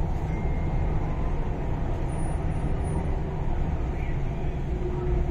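Cabin noise inside an MTR East Rail Line R-Train electric multiple unit: a steady low rumble, with a faint steady hum coming in near the end.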